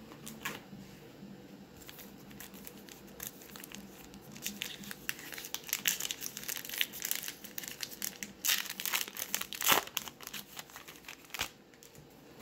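Foil trading-card pack wrapper being torn open and crinkled by hand. A dense run of crackling that grows loudest toward the end, then stops about a second before the end.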